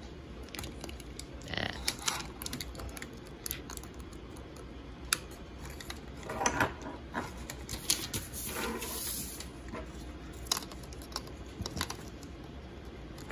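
Hard plastic parts of a Power Rangers Dino Fury Megazord toy being handled and fitted together: irregular small clicks, knocks and rattles, a few sharper snaps among them.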